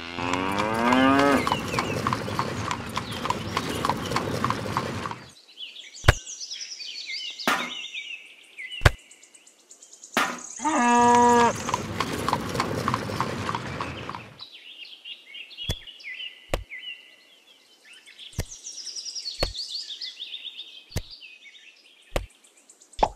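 Two long cattle moos, one at the start and one about ten seconds in, with birds chirping around them. Between the calls come about a dozen sharp single knocks, a second or two apart, the loudest sounds here.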